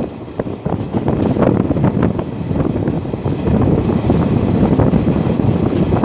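Wind buffeting the microphone over the steady rumble of a moving vehicle, with frequent irregular clattering and knocks.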